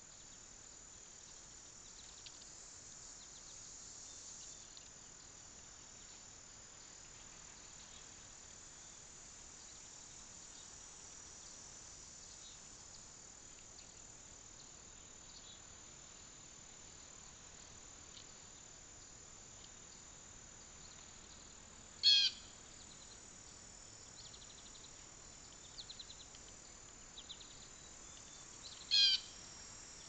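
Steady, high-pitched chorus of summer insects such as crickets. A bird gives a short, loud call twice, once about two-thirds of the way through and again near the end, with a few faint chirps between.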